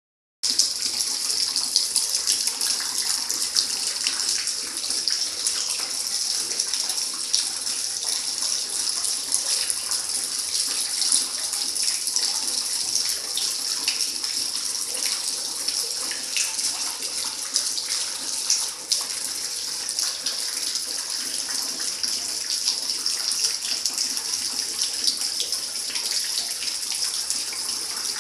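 Water from a leak splashing steadily into plastic buckets and onto a tiled floor, a constant hiss with small crackling splashes.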